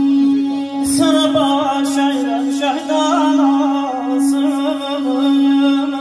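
Live amplified music: a man singing a wavering, ornamented melody over accordion accompaniment and a steady held drone note.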